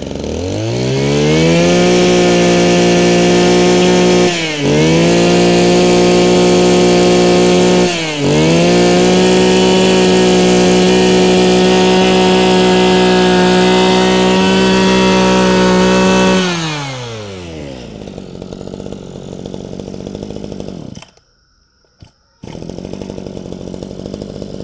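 Mitsubishi TL23 brush cutter's small two-stroke engine revved up from idle and held at full throttle, with the throttle let off briefly twice. It then drops back to idle and runs on there.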